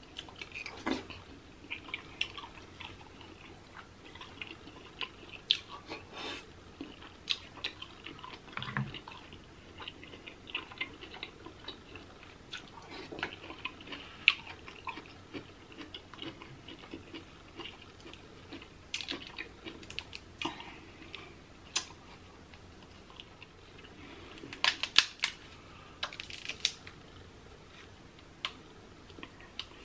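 Close-miked wet chewing and lip smacking of seafood dipped in butter sauce, full of short sticky mouth clicks. Near the end comes a burst of louder cracks and crackles as a king crab leg's shell is broken open.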